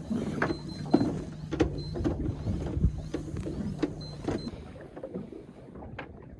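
Electric fishing reel motor running with a steady whir, stopping about four and a half seconds in, over scattered clicks and knocks.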